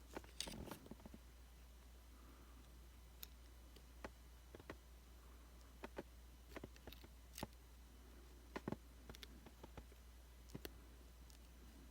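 Faint, scattered small clicks and taps of an iPhone 5c's parts being handled as a ribbon cable connector is gently pressed down onto the logic board to seat it. About a dozen irregular clicks over a steady low hum.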